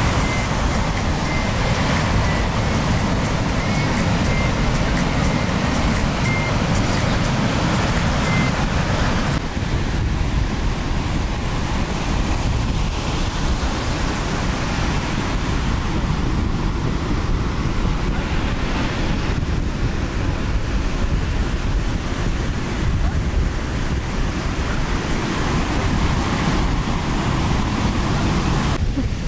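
Ocean surf breaking and washing in, with wind buffeting the microphone as a steady noise heaviest at the low end.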